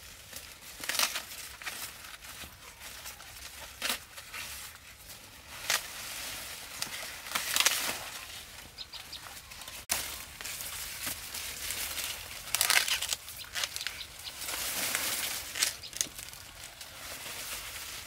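Irregular rustling and crinkling in scattered bursts, about a dozen over the stretch, each a second or less.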